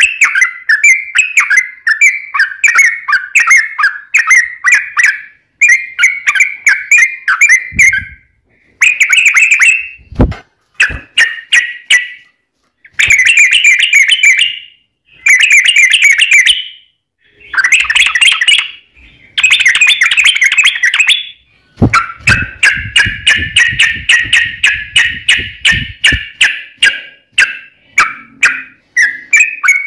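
Yellow-vented bulbul singing its fast, bubbling chattering song in runs of a second or two broken by short pauses, then one long unbroken phrase about three quarters of the way in. A few low thuds are mixed in.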